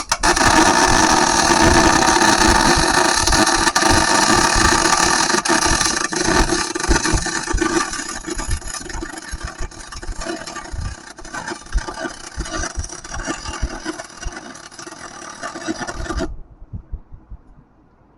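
Welding arc running in one continuous steady hissing crackle while a bolt hole in a steel forklift rim is filled with weld. It starts abruptly, eases somewhat partway through and cuts off suddenly near the end.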